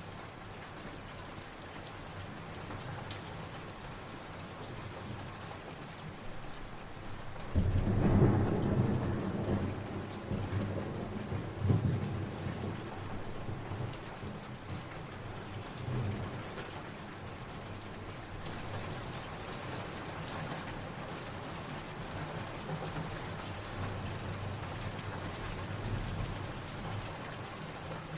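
Steady rain falling, with a rolling peal of thunder starting about a quarter of the way in. The thunder rumbles in several swells for about eight seconds before fading back under the rain.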